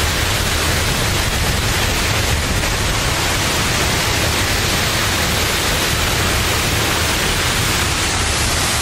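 Steady rush of a large waterfall's falling water: a loud, even noise that never lets up.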